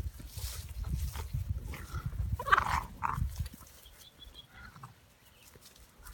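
Tosa Inu puppy giving two short barks about two and a half seconds in, over a low rumble.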